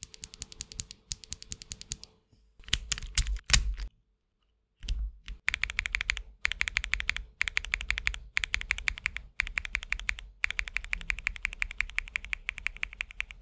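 Typing on a mechanical keyboard fitted with Wuque Studio WS Pearl linear switches, which are factory-lubed and have ball bearings in the stem. Rapid keystrokes come in runs with short pauses, including a louder run about three seconds in and a brief silent gap about four seconds in.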